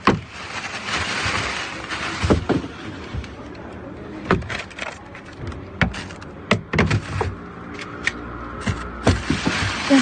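Plastic bag and paper bread bags rustling and crinkling as they are handled, with a busier rustle over the first couple of seconds, followed by scattered sharp knocks and taps as things are moved around inside a dumpster.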